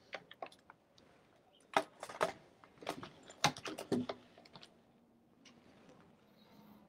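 Handling noise as a light is adjusted by hand: a run of irregular clicks and taps over the first four seconds or so, then only a faint steady low hum.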